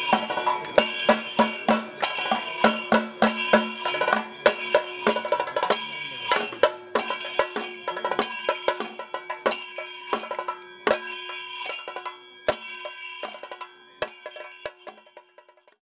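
Percussion music: jangling cymbal clashes about every three-quarters of a second with drum strokes between them, over a held steady tone. It fades gradually and stops shortly before the end.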